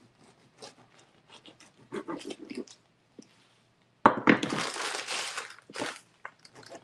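Crusty bread being cut with a kitchen knife on a wooden cutting board: short crunching saw strokes through the crust. About four seconds in comes a louder stretch of plastic bread-bag crinkling as the loaf is handled.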